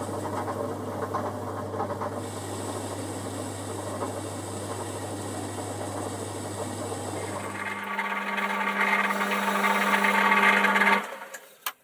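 Boxford lathe running while a parting-off tool cuts into a spinning bar of tough steel. About eight seconds in the sound changes and the cutting noise grows louder, then it all stops about a second before the end.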